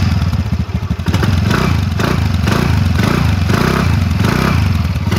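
TVS Ntorq 125 scooter's 124.7 cc three-valve single-cylinder engine running, heard close at the exhaust muffler. The exhaust note pulses about twice a second.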